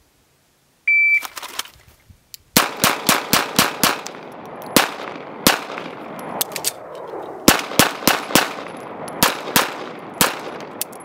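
A shot-timer beep, then a Beretta PX4 Compact pistol fired fifteen times, each shot ringing out across the range: a fast string of six, two slower shots that run the gun dry, faint clicks during a slide-lock reload, four quick shots, then two more and a last single shot. From the beep to the last shot is 9.34 seconds.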